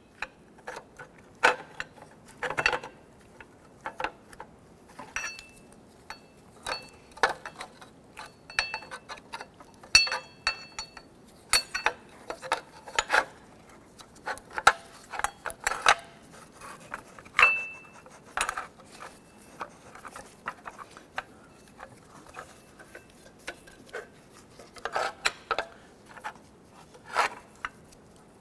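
Steel parking-brake shoes, springs and hardware clinking, scraping and clicking as they are handled and fitted onto the brake backing plate by hand. Irregular sharp clinks, some ringing briefly, between quieter rubbing and scraping.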